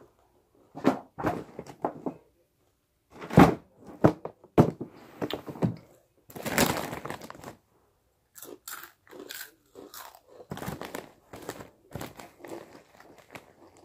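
Takis rolled tortilla chips being bitten and crunched close to the microphone: irregular crisp crunches, with a longer run of crunching about six and a half seconds in.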